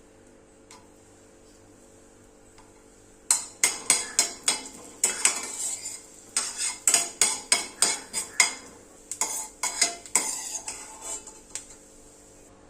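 A metal spoon scraping and knocking against a cooking pan in quick, irregular strokes. The strokes start about three seconds in and stop shortly before the end; before that there is only a faint steady hum.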